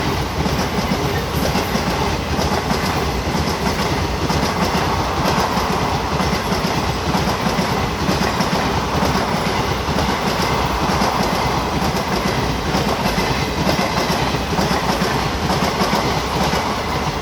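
Railway train running on the track, its wheels beating out a steady clickety-clack over the rail joints. Loud and even throughout.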